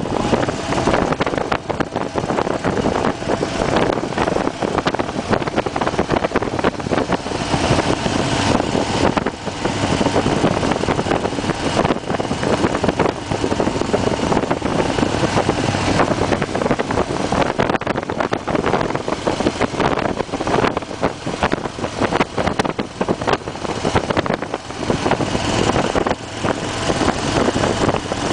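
Harley-Davidson Fat Bob's V-twin engine running steadily at riding speed, with wind rushing over the microphone.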